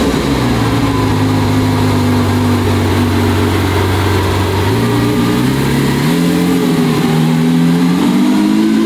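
Car engine running at steady revs, its pitch stepping up three times in the second half.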